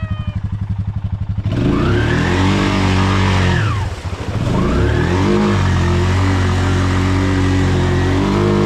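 ATV engine ticking over with an even throb, then revved hard about a second and a half in as the quad churns through deep pond water with a rushing splash. The revs drop briefly about four seconds in, then climb again and hold high.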